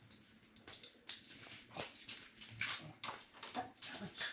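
A dog whining in short, broken bursts, with light clicks and a sharp clink near the end.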